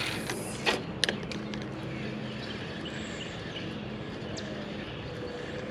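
A brief whoosh at the start and two sharp clicks about a second in, typical of casting with a spinning rod and flipping the reel's bail closed; then a steady low hum with faint bird chirps.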